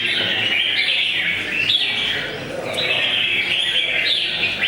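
Red-whiskered bulbuls singing together: a dense chorus of overlapping chirping phrases with no break, dipping briefly a little past halfway.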